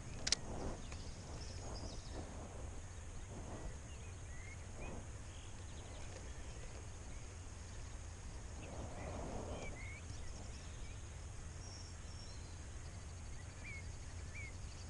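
A spinning reel's bail snaps shut with a sharp click about a third of a second in, as the lure is being retrieved. Under it runs a low steady rumble, and small birds chirp now and then.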